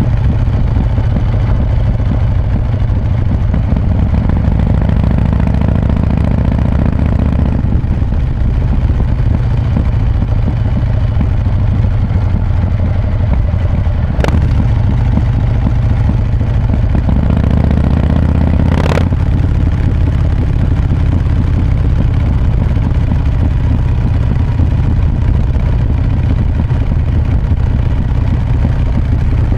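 Harley-Davidson Breakout's V-twin, fitted with an S&S 475 cam and a Vance & Hines exhaust with quiet baffles, running steadily on the move. Its note changes several times as the throttle is worked, and there is a short sharp click about halfway through.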